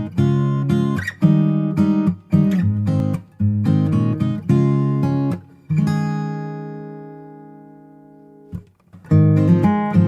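Background music of strummed acoustic guitar chords. Past the middle, one chord is left ringing and fades for nearly three seconds before the strumming starts again.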